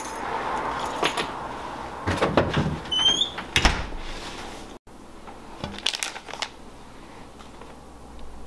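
A few scattered knocks and clicks, with a short rising squeak about three seconds in, and quieter clicks later on.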